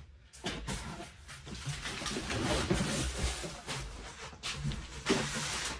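Cardboard model-kit boxes being handled and slid about: an uneven rustling, scraping noise with a few light knocks.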